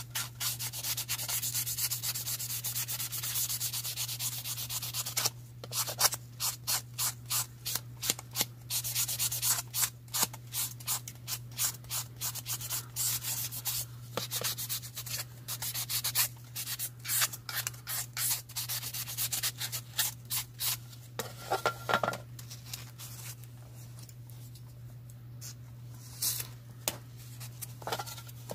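A 600-grit sanding sponge scuffing a plastic model car body by hand, to give the primer something to grip. It starts as a steady rasp, turns into quick back-and-forth strokes at about two a second, and grows fainter near the end.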